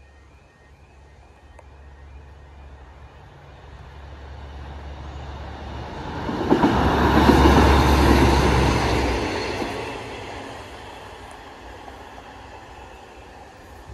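Train passing over a level crossing: it approaches and grows louder over several seconds, passes at its loudest for about three seconds with wheel rumble and rail clatter, then fades away.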